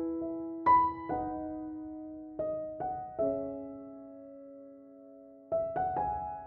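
Soft background piano music: single notes and chords struck and left to ring and fade, with a lull in the middle.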